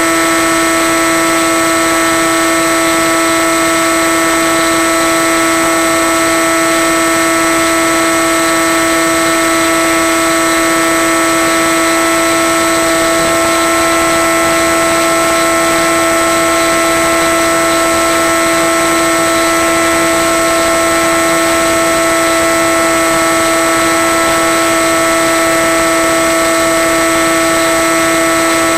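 Electric motor and propeller of a Skywalker FPV plane running at steady cruise power, heard from on board as one steady drone with overtones over a constant hiss. The pitch shifts slightly about halfway through.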